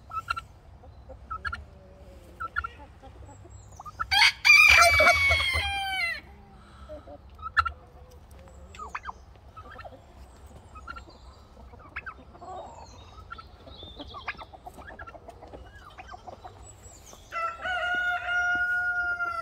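A rooster crowing twice, once about four seconds in and again near the end, with hens clucking softly in between.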